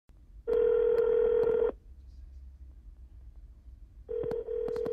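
Outgoing-call ringback tone played through a Ford SYNC car audio system while a call is being placed: one steady ring about half a second in, then a second ring starting about four seconds in, with a few faint clicks around it.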